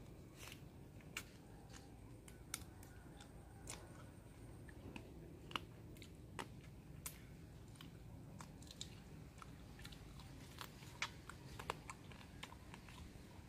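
Close chewing and biting on satay-grilled chicken feet: irregular small crunches and sharp clicks, over a faint steady low background noise.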